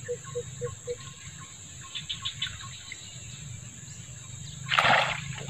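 A short splash about five seconds in: a snakehead striking the bait at the water's surface. Underneath runs a steady high-pitched tone, with a few regular ticks in the first second.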